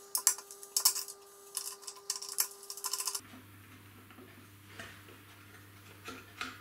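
Quick small clicks and taps of a plastic wheel and its bolt and nut being handled and fitted to an air compressor tank by hand. They are busiest in the first three seconds, then give way to a few faint clicks.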